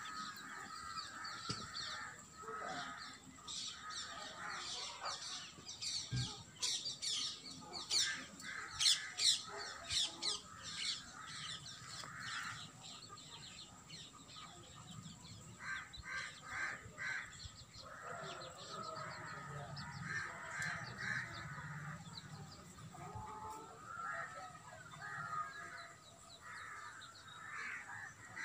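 Birds chirping and calling: quick, high chirps typical of house sparrows come thickest a few seconds in, with other birds' repeated, lower calls throughout.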